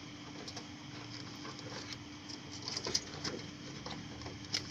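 Light clicks and taps of a RAM stick being handled and fitted into a PC's memory slot, with a few sharper ticks about three seconds in and near the end, over a steady low hum.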